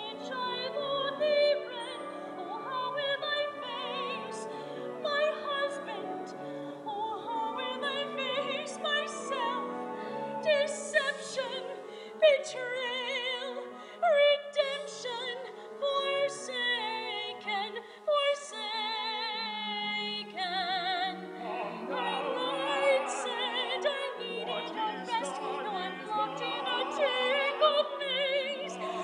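A woman singing opera with a wide vibrato over instrumental accompaniment, with long held notes about two-thirds of the way through.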